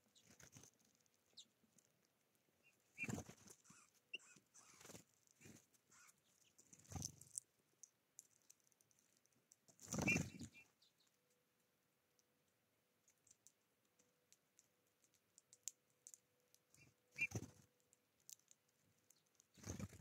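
Small birds (Eurasian bullfinches and tits) at a seed tray: scattered short fluttering wingbeats and scuffling among the seeds, some with brief high notes. The loudest flutter comes about halfway through, as birds fly off the tray.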